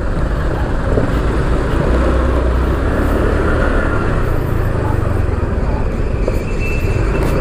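Motorcycle riding along in traffic: a steady low rumble of engine and wind buffeting on an action-camera microphone, with road noise from surrounding trucks and cars.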